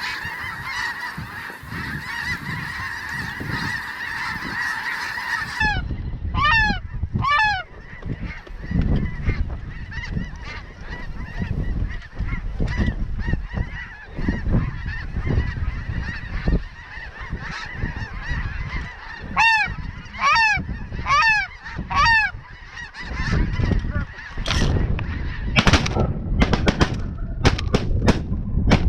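Snow geese calling: a dense, continuous flock clamor that cuts off abruptly about six seconds in, then single high honks in short runs of three or four. Wind buffets the microphone throughout the second part, and a few sharp cracks come near the end.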